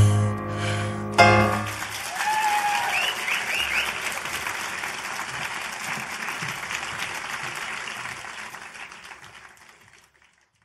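A band's closing chord holds, hits once more and stops about a second and a half in, then a theatre audience applauds and cheers, fading out near the end.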